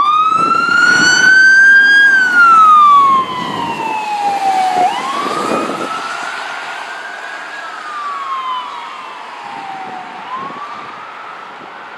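Ambulance electronic siren on wail: one tone rising and falling slowly, about one rise-and-fall every five seconds. It is loud at first, drops sharply about three seconds in, and fades as the ambulance moves away.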